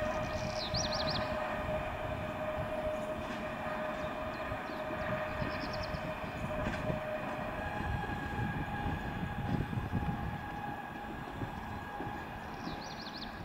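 A PESA Elf electric multiple unit pulling away, with wheel rumble and a steady electric whine from its traction drive. About seven and a half seconds in, the whine jumps to a higher pitch. Short high bird trills come through three times.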